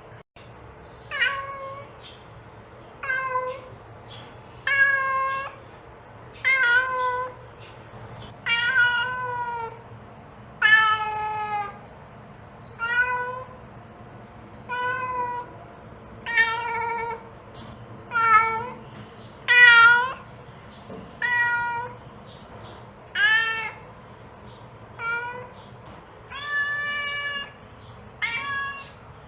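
Domestic cat meowing over and over, one call about every two seconds, some bending down in pitch at the end: a mother cat calling for her kittens.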